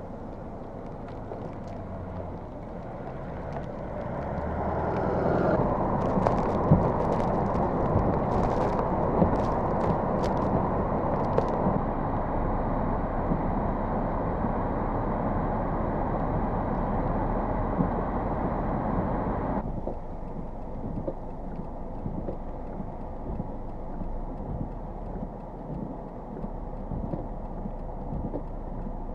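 Road vehicle noise in a snowstorm: a steady rush of passing traffic and engines. It gets louder about five seconds in and drops off abruptly about twenty seconds in.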